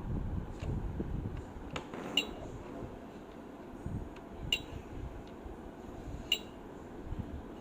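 Light, sharp clicks with a brief metallic ring, about every two seconds, over low rumbling handling noise: a cuckoo clock being handled while its hands are set.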